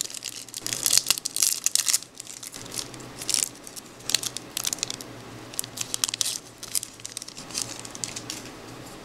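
Plastic wrapper of a baseball card pack being torn open and crinkled, loudest in the first couple of seconds, then scattered crinkling that dies away near the end.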